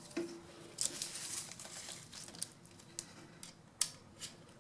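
Handling noises: scattered light clicks and rustling as a braided airbrush hose is fitted onto the airbrush compressor's outlet.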